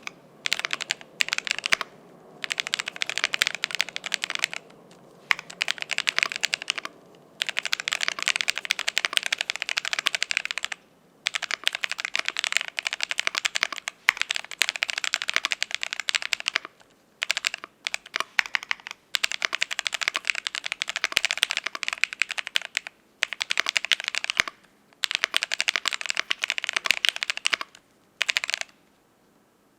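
Fast typing on a Cyberboard R3 mechanical keyboard with an aluminium plate, lubed ICY Silver switches and Kelowna transparent keycaps: dense key clacks in runs of a few seconds, broken by short pauses.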